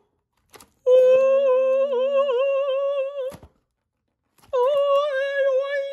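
A man's voice humming or crooning long held notes, twice, with a slight wavering pitch and a short silent gap between them.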